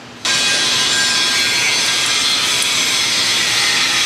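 A loud, steady hiss starts abruptly a fraction of a second in and holds level, with a faint high tone running through it.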